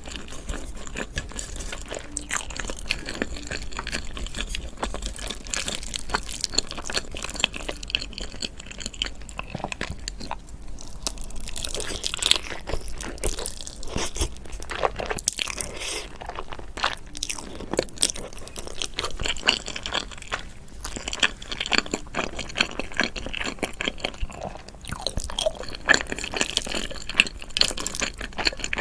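Close-miked eating: a person crunching and chewing food, with many quick, irregular crunches throughout.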